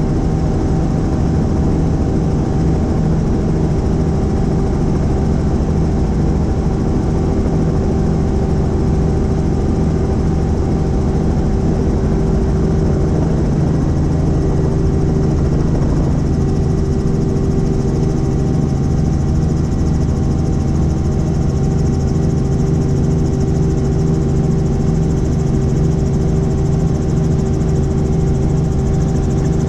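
Helicopter running steadily, its engine and rotor making a constant loud drone with several steady tones and no change.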